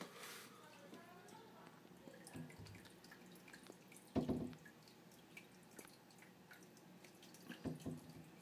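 Faint dripping and trickling of aquarium water, with scattered small drips. A dull knock comes about four seconds in, and two softer knocks come near the end.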